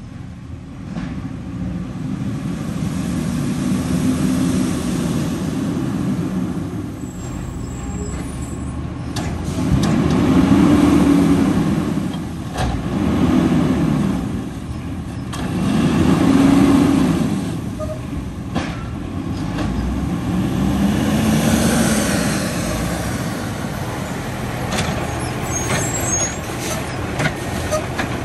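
Diesel engine of an automated side-loader garbage truck revving up and falling back in about five swells as it moves along and pulls up, with short air-brake hisses between the revs.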